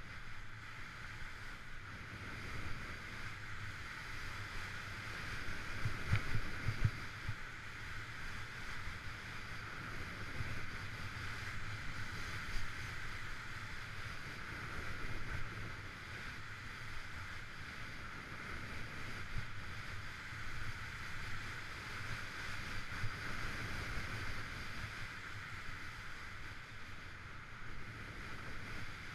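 Skis sliding and carving over packed piste snow, a steady hiss, with wind buffeting the microphone as an uneven low rumble that swells loudest about six seconds in.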